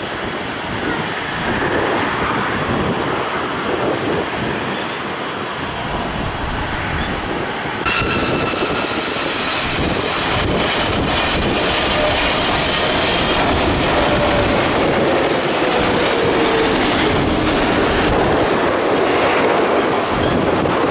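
Jet engine roar of a twin-engine widebody airliner climbing away after take-off. After an abrupt cut about eight seconds in comes a second widebody twinjet on final approach and touching down: the roar carries steady high fan whines, and a lower whine falls slowly in pitch.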